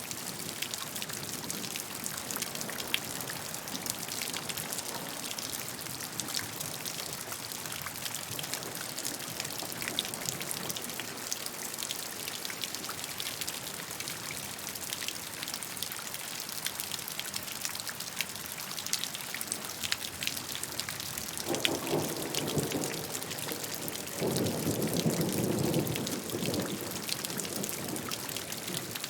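Steady rain falling, with many separate drops heard as small ticks. Two short low rumbles come about three-quarters of the way through, the second the louder.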